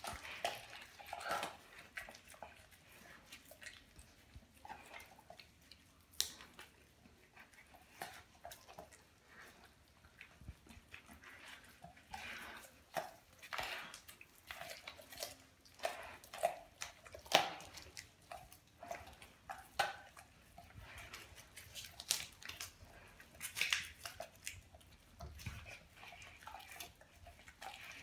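Doberman chewing and biting into a whole raw tilapia: irregular sharp crunches and clicks of teeth on the fish.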